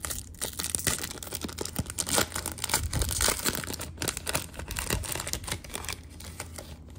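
Foil-lined trading-card pack being torn open, its wrapper crinkling and crackling as it is peeled back and the stack of cards is slid out.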